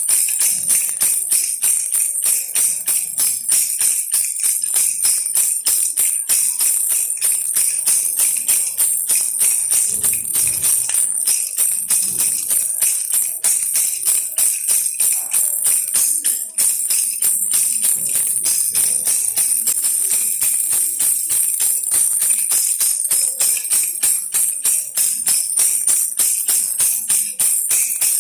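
Baby rattle shaken steadily in an even rhythm, about four shakes a second, giving a high-pitched jingle.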